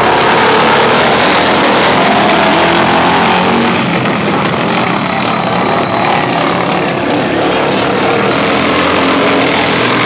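Racing lawn mower engines running loud and steady.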